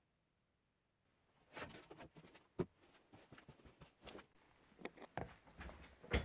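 Faint, irregular knocking and scraping of wooden pieces being handled, with a sharp knock about two and a half seconds in and another near the end.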